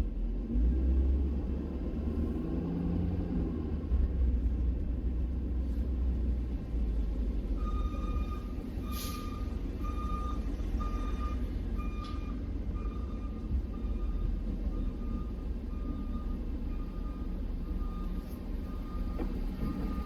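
Steady low rumble of a vehicle engine. About eight seconds in, a backup alarm starts beeping at an even pace, a little more than once a second. Two short knocks come soon after the beeping begins.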